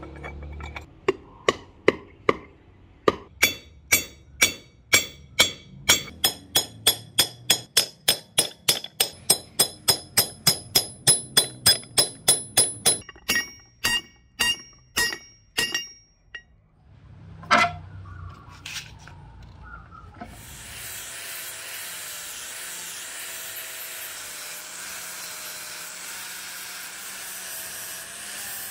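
Hammer blows on a steel axe head resting on an anvil, about three a second with a ringing metallic note, slowing to a few last strikes. About two-thirds of the way through, an angle grinder with an abrasive disc starts and runs steadily, grinding the vintage True Temper Kelly Flint Edge axe head.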